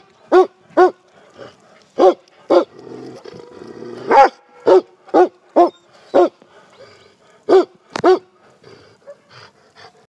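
Stray dogs barking: a string of about a dozen short, loud barks, some coming in quick pairs.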